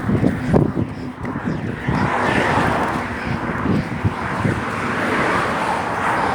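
Road traffic: vehicles passing, their noise swelling and fading twice, with wind on the microphone and low thumps in the first couple of seconds.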